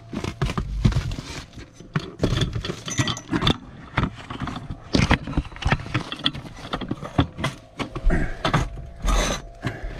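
Irregular knocks, scrapes and rustling of a person in a protective suit crawling through a cramped attic, bumping against wooden joists and brushing glass-wool insulation, with carried gear clattering.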